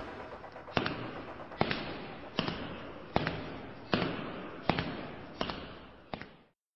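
A series of about eight sharp hits, roughly one every 0.8 seconds, each with a short echoing tail, the last ones fainter, then cutting off: a sound effect for an animated logo.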